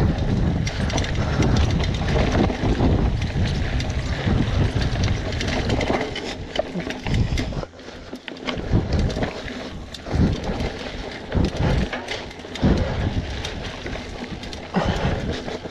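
Wind rumbling on the microphone of a hardtail mountain bike's rider-mounted camera as it rolls fast down a dirt singletrack, with tyre noise and the bike clattering over bumps. The rumble swells and fades, with short knocks here and there, more of them in the second half.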